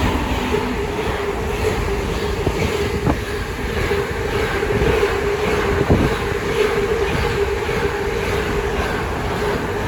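Direct Rail Services Class 88 locomotive hauling a freight train past at speed: a steady whine over the rumble of the wagons, with a couple of sharp clanks.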